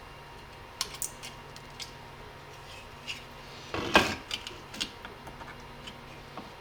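Scattered small clicks and taps of hand tools and parts being handled while working on an airsoft gun's lower receiver, with a louder clatter about four seconds in, over a faint steady hum.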